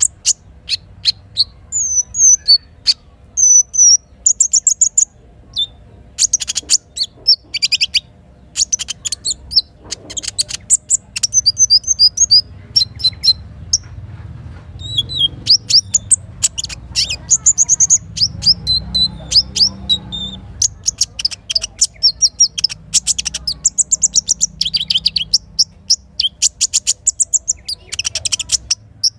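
Small songbird calling in fast, high chirps and rapid trills, one run after another with short gaps, over a faint low steady rumble.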